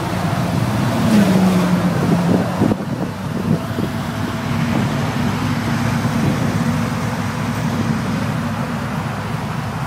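Turbocharged Chevy Silverado's engine held at high revs during a burnout. The engine climbs about a second in, dips briefly near three seconds, then runs at steady high revs.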